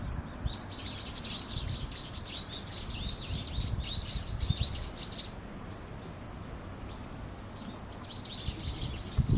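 A small songbird singing a long run of quick, arched chirps, one phrase of about four and a half seconds and another starting near the end, over a low rumble of wind on the microphone.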